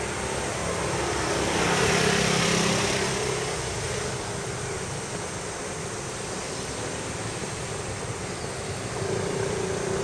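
A vehicle passing by: a rush of road noise that swells about two seconds in and fades away by four seconds, over a steady low hum.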